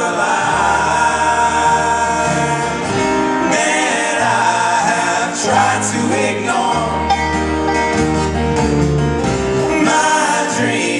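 Live acoustic string band: banjo, acoustic guitar and upright bass playing together, with voices singing over them.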